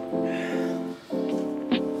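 Mellow background music: sustained chords that break off briefly about a second in and resume, with a light percussive tick near the end.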